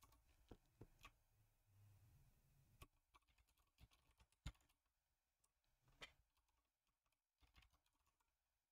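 Faint, scattered keystrokes on a computer keyboard, single taps about a second apart, with near silence between.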